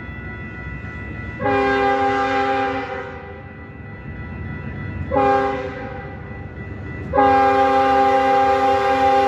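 Locomotive multi-chime air horn sounding a chord three times: a long blast, a short one, then another long blast held on, over the low rumble of the train.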